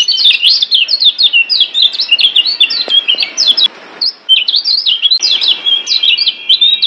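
Kecial kuning (Lombok yellow white-eye) singing a fast, continuous chatter of high, sharply rising and falling chirps and trills, with a brief break just before the middle.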